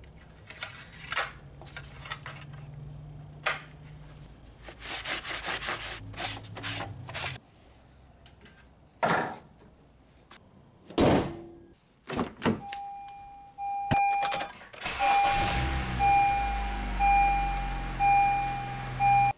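Rag rustling and clicks as the dipstick is wiped and pushed back in, then two heavy thuds. A chime starts beeping about once a second. Near fifteen seconds in, the 2012 Honda Civic's 1.8-litre four-cylinder engine starts and settles to a steady idle just over 1,000 rpm, with the chime going on over it.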